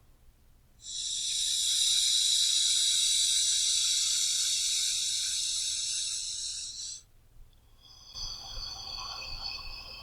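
A person breathing deeply and slowly, as in a relaxation breathing exercise. One long, loud breath lasts about six seconds and stops abruptly, and a quieter breath begins about eight seconds in.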